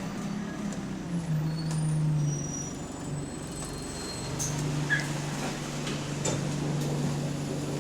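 Bus engine heard from inside the bus, running with a steady low drone that shifts pitch in the first couple of seconds, then settles from about halfway. The bus has a developing exhaust leak.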